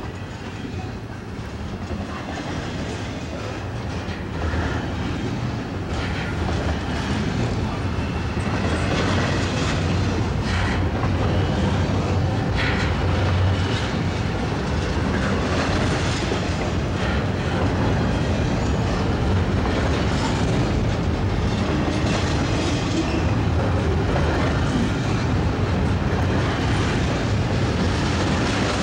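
Double-stack intermodal freight cars rolling past, their wheels rumbling and clacking on the rails. The sound grows louder over the first several seconds, then holds steady.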